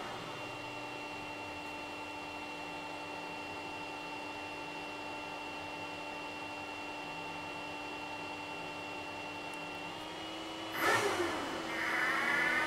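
Steady hum of running server cooling fans with a thin, steady high whine. Near the end a louder sweep falls in pitch and a rising whine follows.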